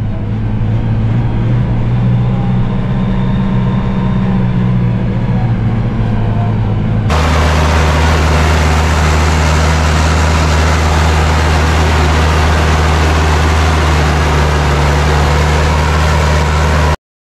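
New Holland TD75D tractor's diesel engine running steadily as the tractor pushes through deep snow, first heard from inside the cab. About seven seconds in, the sound switches abruptly to a louder, lower engine drone with a steady hiss over it, taken from outside beside the front wheel. It cuts off suddenly near the end.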